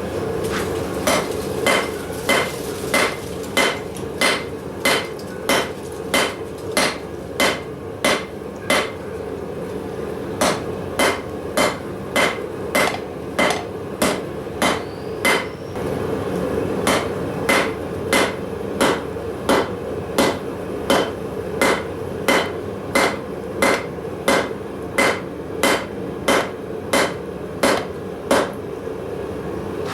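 Blacksmith's hammer striking steel on an anvil in a steady rhythm, about one and a half blows a second, each blow ringing. There are brief breaks about nine and sixteen seconds in, and a steady hum runs underneath.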